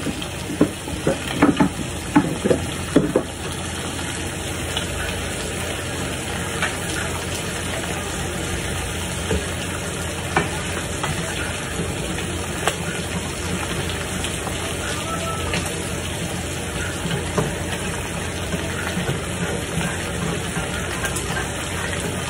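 Food sizzling in frying pans on a stovetop, a steady frying hiss. There are a few sharp clatters of utensils or cookware in the first three seconds.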